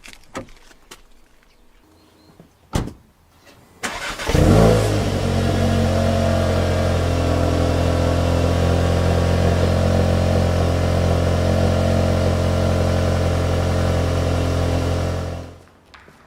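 A few clicks, then a Volkswagen 2.0-litre turbocharged four-cylinder engine starts about four seconds in with a brief flare of revs and settles into a steady idle through a stock exhaust with a petrol particulate filter. It is switched off near the end.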